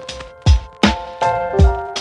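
Background music: an upbeat track with a steady kick-and-snare drum beat under sustained keyboard and guitar notes.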